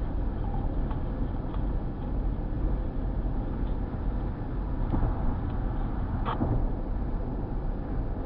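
Steady road and engine noise inside a moving car's cabin, a continuous low rumble.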